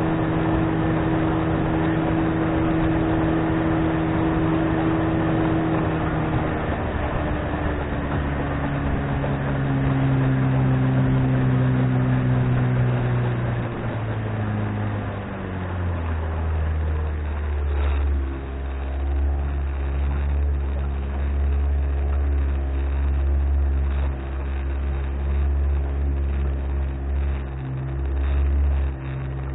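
1997 Johnson 25 hp two-stroke outboard motor pushing a small aluminium boat at speed, then throttled back: its pitch falls in steps over about ten seconds and settles into a lower, slower run. Water rushing past the hull and wind noise can be heard under the engine.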